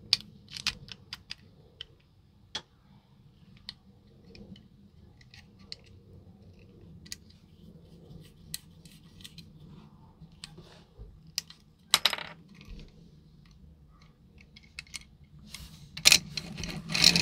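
Small clicks and taps from a diecast toy car being handled and put back together: the plastic wheeled base pressed into the metal body and a tiny screw driven in with a fine screwdriver. There is a louder clatter about twelve seconds in and a longer one near the end.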